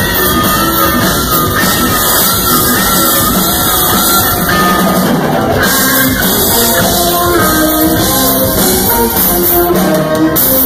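Live rock band playing loud: electric guitar lead lines over drums and bass, recorded close to the stage.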